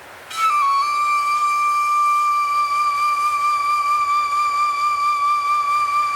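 A flute holding one long, high note with a slight waver. It comes in about half a second in with a quick small drop in pitch and holds steady over a faint, even hiss.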